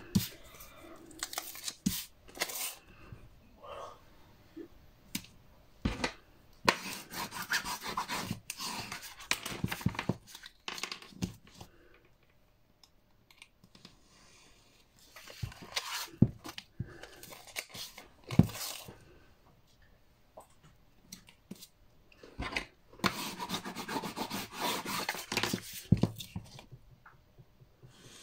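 Double-sided tape and paper being handled: bursts of rustling, scraping and tearing come in four spells with quiet gaps between, and a few sharp clicks fall among them.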